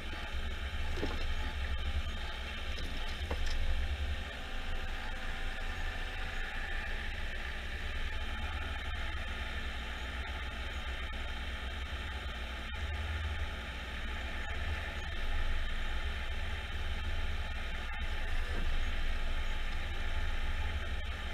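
Jarcrac Dual forwarder's diesel engine running steadily with a deep low hum while its hydraulic crane loads pulpwood logs, with a couple of sharp knocks in the first few seconds.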